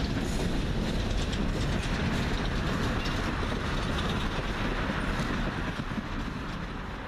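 Empty coal hopper cars of a freight train rolling past, a steady rumble of wheels on rail with many small wheel clicks. It fades near the end as the last car goes by.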